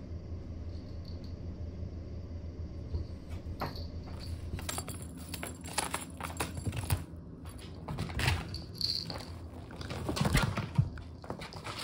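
Cat wand toy rattling and scraping as it is swished across tatami mats, with a kitten's paws scuffing and scampering after it. Irregular clicks and rattles start a few seconds in, over a steady low hum.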